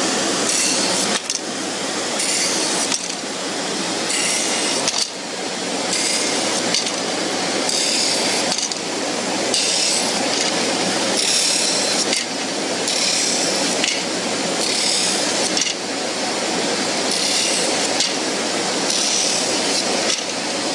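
Drum sander running steadily while a bundle of wooden tong pieces is pressed against the drum again and again, rounding over their edges. Each pass brings a harsher grinding that comes about every one and a half to two seconds.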